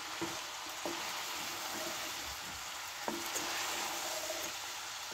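Stir-fry vegetables sizzling in a pan on full heat while being stirred, with a few light clicks of the utensil against the pan.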